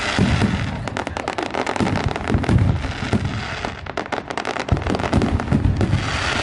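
Aerial sky-shot fireworks bursting overhead: a dense run of rapid crackling pops over repeated low booms.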